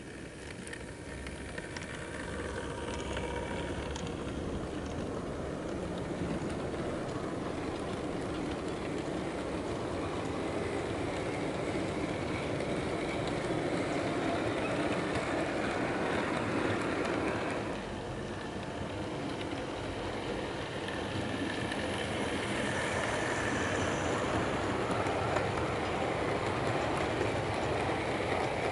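Model train running past on the layout: a steady rumble of wheels and running gear on the track that grows louder as it nears, with a brief drop about two-thirds through.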